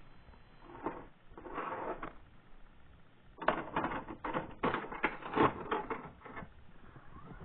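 Irregular handling clicks and clatter. A few come around one to two seconds in, then a denser run of quick clicks from about three and a half to six seconds.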